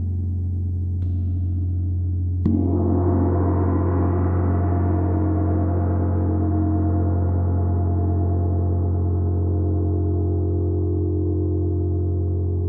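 28-inch Chau gong struck with a felt-headed mallet: a soft stroke at the start and another about a second in, then a firmer stroke about two and a half seconds in. After it the gong rings on with many overlapping pitches over a deep steady hum, the higher shimmer slowly fading while the low tone holds.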